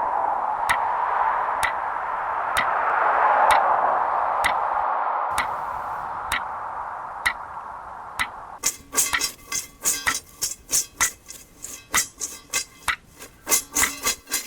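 Clock ticking about once a second over a steady hiss, in an electronic sound collage. The hiss fades out about eight seconds in, and a faster, denser run of ticks and clicks takes over.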